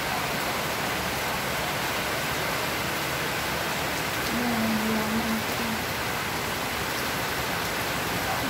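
Steady rain pouring down, an even hiss of rainfall.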